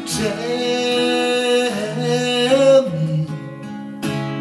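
Two amplified acoustic guitars, an Ibanez Talman and a Martin OMJM, strumming chords while a man's voice holds a long wordless sung line that ends about three seconds in.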